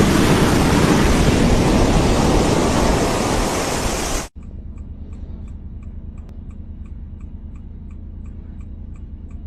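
Loud rushing noise of wind and surging sea water buffeting the microphone. It cuts off abruptly about four seconds in, leaving a quieter low hum with faint, regular ticking.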